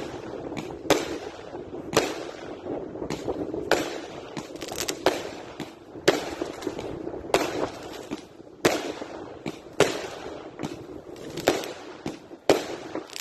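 Aerial fireworks going off in quick succession: a sharp bang about once a second as shells launch and burst, with crackling in between.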